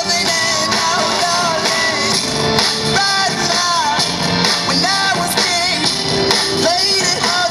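Loud recorded music with a singing voice over a full instrumental backing.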